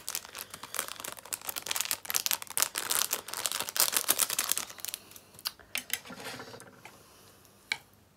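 Plastic food packaging crinkling and crackling close to the microphone as it is handled and torn open: a dense run of rapid crackles for about five seconds, then a few scattered clicks.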